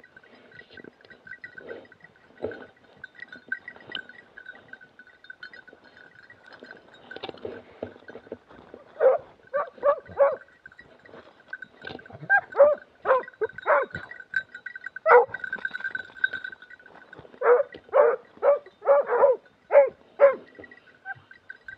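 Hunting dogs barking in short runs of barks from about nine seconds in, with several runs close together near the end. Before the barking there are footsteps and brush rustling, and a faint steady high tone runs underneath throughout.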